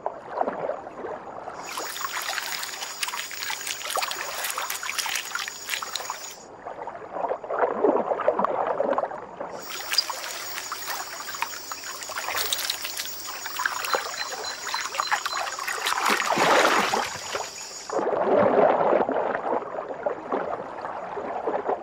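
Water splashing and gurgling around swimming giant otters, coming in stretches of several seconds that swell and fade.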